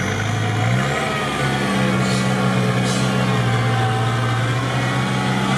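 Off-road vehicle's engine running steadily, heard from inside the cab; its revs step up slightly about a second in and then hold.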